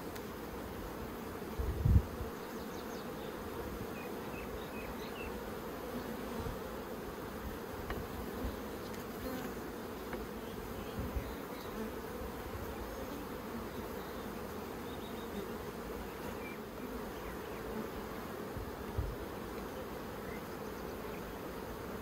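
Honeybees buzzing in a steady, dense hum around an opened hive box and a bee-covered brood frame. A brief low thump about two seconds in, and a smaller one near the end.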